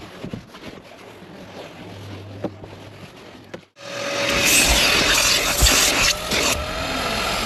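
Light rubbing and brushing for the first few seconds, then after an abrupt cut a car-detailing power tool runs loudly: a motor whine that wavers in pitch over steady scrubbing and rushing noise.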